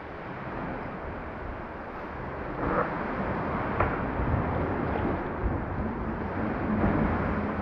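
Sea water sloshing and splashing around a sea kayak as it is paddled forward, with a few sharper splashes midway and wind noise on the microphone.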